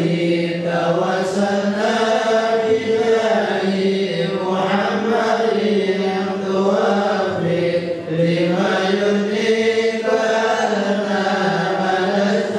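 A man's voice chanting an Islamic recitation in Arabic into a microphone, melodic and drawn out in long held notes.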